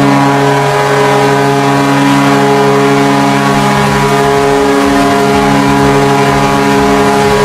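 Vancouver Canucks' hockey goal horn sounding one long, steady blast, several deep tones at once.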